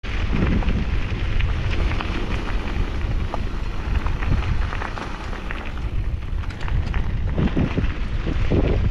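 Mountain bike's knobby tyres rolling fast over loose gravel: a steady crunching rumble scattered with small clicks of stones, mixed with wind buffeting the action camera's microphone.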